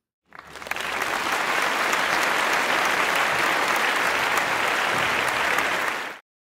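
Crowd applause: many hands clapping together, swelling in quickly, holding steady for about six seconds, then cutting off abruptly as a dropped-in applause track.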